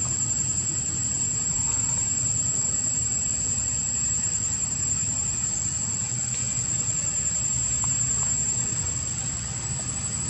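Outdoor ambience: a steady, unbroken high-pitched insect drone over a constant low rumble.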